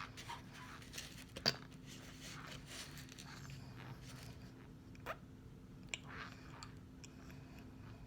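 Mouth chewing and crunching dry corn starch chunks, with a few sharp crunches, the loudest about a second and a half in and others near five and six seconds.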